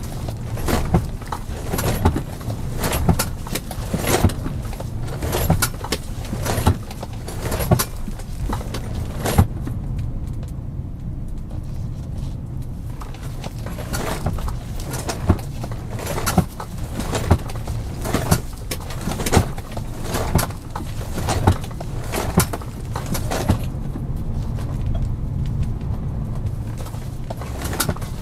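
Car being driven: a steady low engine and road hum with frequent irregular clicks and knocks.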